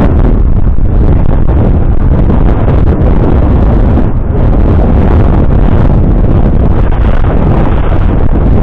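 Heavy wind buffeting the microphone: a loud, steady, rumbling roar concentrated in the low end, with no distinct tones.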